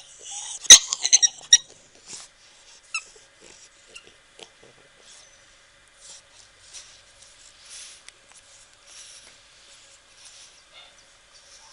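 A pet animal's brief burst of high, squeaky cries during the first second and a half, then faint scattered rustles and clicks.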